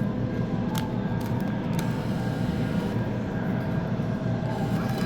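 Steady low droning hum of machinery, with a couple of faint clicks about one and two seconds in.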